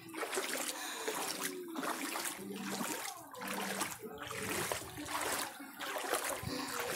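Legs wading through shin-to-knee-deep flood water, a slosh and swish of water with each stride, a little more than one step a second.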